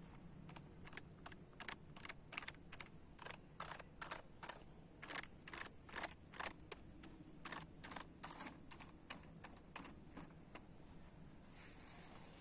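Keys of a computer keyboard being pressed one after another: faint, irregular clicks, a few a second, that stop about a second before the end.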